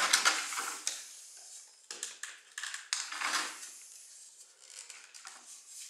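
White plastic central-vacuum pipe and elbow fittings scraping and rubbing as they are twisted by hand in their loose joints. The longest scrape comes in the first second, followed by a few shorter ones.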